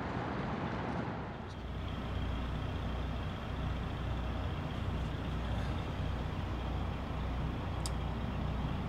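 Steady low mechanical drone with a faint, steady high tone above it. About a second and a half in, rougher noise gives way to the drone.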